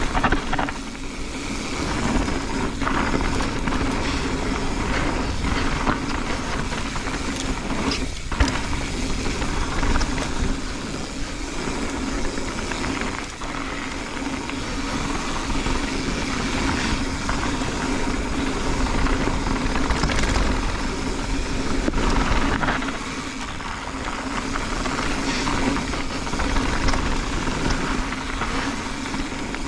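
Mountain bike riding fast down a loose gravel dirt trail: steady rumble of the tyres over dirt and stones with wind rushing past the camera, and occasional knocks and rattles from the bike over bumps.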